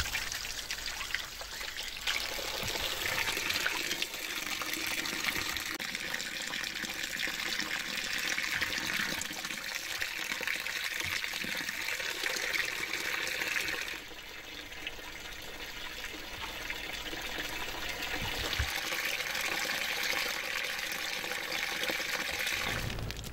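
Tap water running: first briefly over hands at a wall tap, then pouring into a stainless steel bowl of peeled potatoes as they are rinsed. The splashing is steady, dips a little about two-thirds through and builds again.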